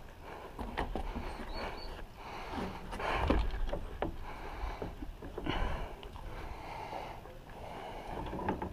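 Climbing noises close to a chest-worn camera: irregular scrapes, clicks and knocks of hands and shoes on rusty metal bars and concrete, clothing rubbing on the camera, and breathing, with low thumps about three seconds in and again about five and a half seconds in.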